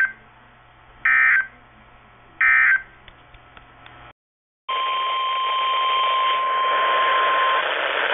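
Three short bursts of EAS SAME data tones from a NOAA Weather Radio receiver, about a second apart: the end-of-message code closing the flood warning broadcast. After a brief gap, radio static begins with the steady 1050 Hz weather radio warning alarm tone, which cuts off about three seconds later while the static continues.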